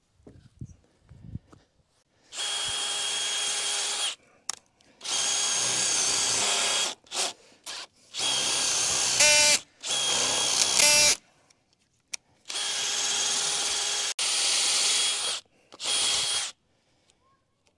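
Power drill driving screws into wooden framing lumber in a series of runs of one to two seconds, with a few short blips between them. The motor whines steadily in each run, and in the loudest run, about nine seconds in, the pitch rises.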